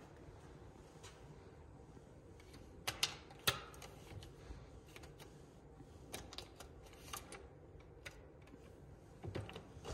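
Plastic key card clicking in and out of the slot of a hotel door's electronic card lock: scattered sharp clicks, the loudest three about three seconds in and a few more near the end, as the card is tried again and again without the door opening.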